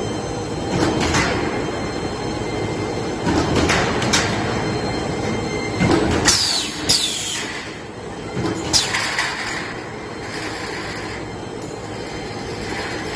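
CW/UW steel stud roll forming machine running steadily, with repeated sharp metal clanks and high metal squeals that fall in pitch, strongest around six and seven seconds in.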